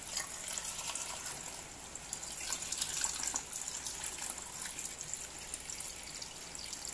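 Water running steadily into a cooking pot of sliced ube (purple yam), filling it to cover the pieces for boiling.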